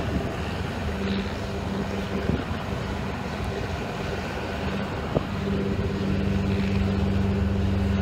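Large wooden fishing boat's diesel engine running steadily under load as the stranded hull is worked off the sand, its hum growing stronger about five and a half seconds in. A single brief knock sounds just before that.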